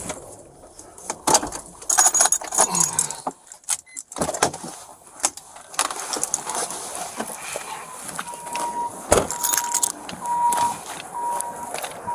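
Clinking and rattling of keys and gear as someone moves in and out of a car. From about eight seconds in, a car's electronic warning chime beeps about once a second, with a single thump just after it starts.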